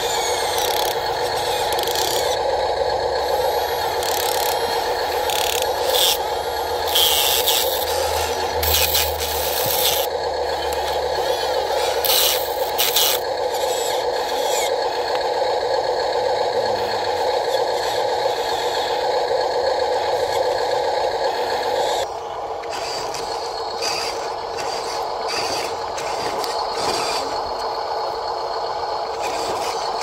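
Radio-controlled model excavator at work: its small electric motors make a steady whine while the bucket scrapes and clatters through soil and gravel. The scraping is busiest in the first half, and the whole sound drops a little about two-thirds of the way through.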